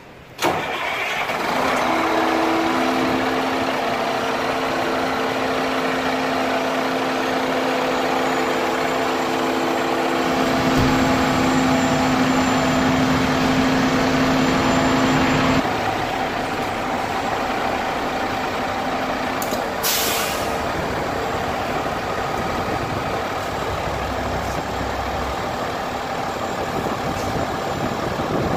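A KME fire engine's diesel engine starts with a sudden loud burst and then idles steadily; about 15 seconds in its steady tones fall away and it runs a little quieter. A short hiss of air about 20 seconds in fits an air brake release.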